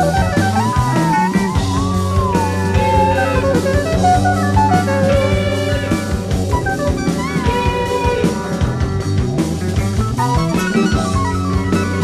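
1970s rock band recording: a lead line of gliding, bending notes over guitar, bass and a drum kit keeping time.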